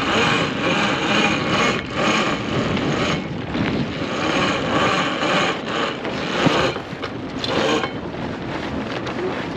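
Mainsail being hoisted by hand: a rushing, rustling noise of sail cloth and halyard coming in uneven surges, dropping away about eight seconds in.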